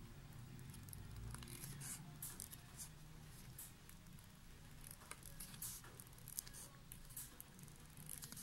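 Scissors snipping in short, faint, irregular strokes, cutting a black backing sheet close around glitter craft-foam letters.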